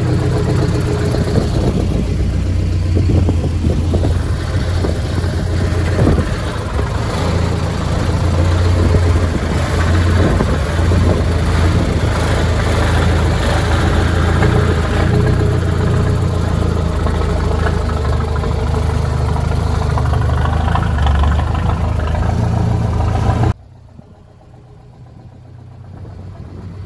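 Mercedes engine in a converted GAZ-63 off-road truck running with a steady low drone as the truck creeps along. The sound cuts off abruptly near the end.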